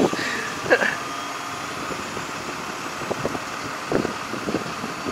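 A mobile crane's engine runs steadily while it hoists an overturned tractor on slings. There are brief voice sounds in the first second.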